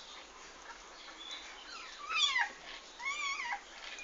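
Newborn kittens mewing: two high, thin cries about a second apart, the first rising then dropping sharply, the second arching up and down, with a fainter cry before them.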